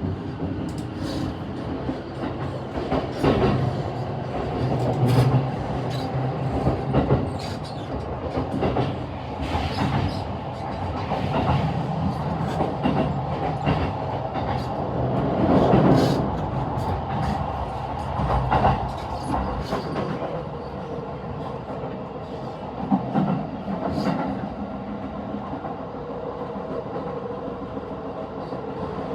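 E233 series electric commuter train running at speed, heard from inside the leading car: a steady rumble of wheels on rail, broken by irregular clicks and knocks as the wheels cross rail joints, with louder swells now and then.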